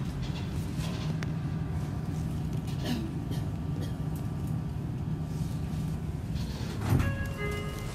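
Seibu 40000 series electric train standing at its terminus: a steady low hum from the train with scattered clicks and knocks. Near the end a short electronic chime of several tones sounds.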